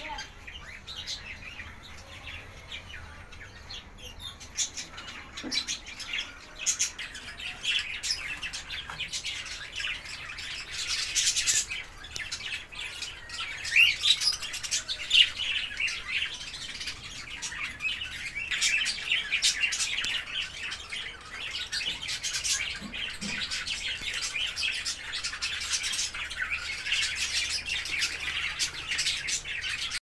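A flock of caged small parrots, budgerigars among them, chirping and chattering continuously; the chirping grows denser and louder from about seven seconds in.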